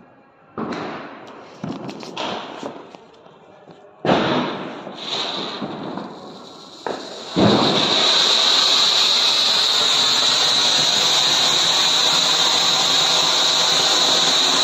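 Anil 'Elegant Fountain' cone firework (anar) being lit: a few brief hisses, then about halfway in it catches and shoots up sparks with a loud, steady, high-pitched hiss.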